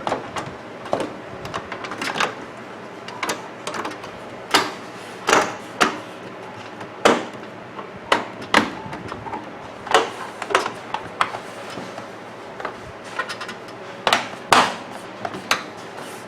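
A series of irregular sharp clicks and knocks as parts of a microwave oven are handled and fitted back into place after a door latch repair.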